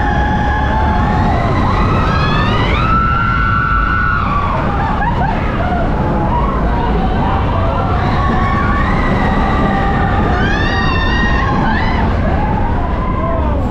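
Riders screaming and yelling, many long cries that rise and fall in pitch, over the steady low rumble of a Vekoma roller coaster train running on its track in the dark.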